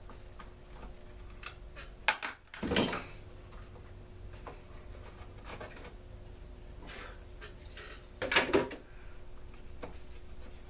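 Clunks and clatter of the plastic housing and parts of a Stihl BG 56 C leaf blower being handled and taken apart, with light tool clicks between. The loudest clunks come about two seconds in and in a quick cluster near the end.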